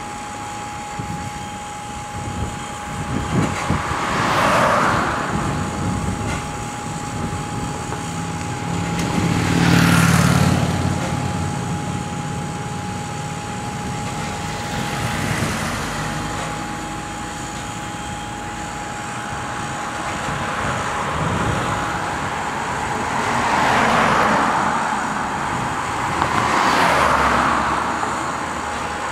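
Road traffic on the street: about five vehicles pass one after another, each swelling and fading, the one about ten seconds in heavier with a deeper rumble. A steady tone runs underneath throughout.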